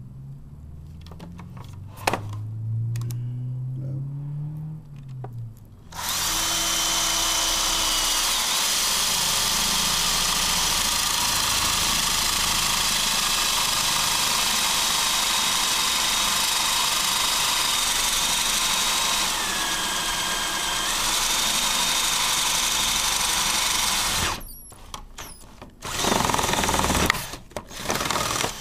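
Power drill with a large bit boring a hole through the plastic wall of an Otterbox case. A quieter low hum rises in pitch over the first few seconds. Then comes about eighteen seconds of steady, loud drilling with a high motor whine, which cuts off suddenly and is followed by a few short bursts of drilling near the end.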